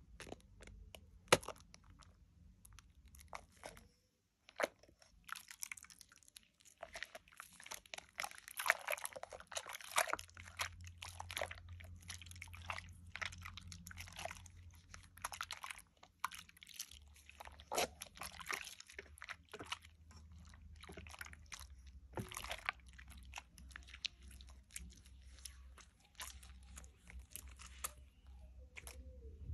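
Dove shea butter soap lather squeezed and worked between wet hands over a bowl of sudsy water: a dense run of wet squishing crackles, busiest in the middle and thinning out near the end.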